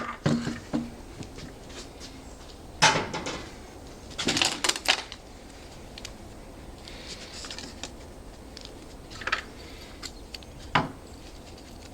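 Scattered knocks and clinks of hard objects being handled and set down, with a short run of clatters about four to five seconds in: a frozen padlock and a de-icer can being picked up and readied.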